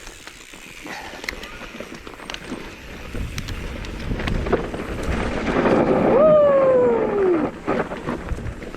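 Mountain bike rolling down a loose, dusty dirt trail: tyres running over dirt and rocks with rattles and knocks from the bike, and wind on the microphone, getting louder as speed builds. A short falling whine sounds near the peak, a little past halfway.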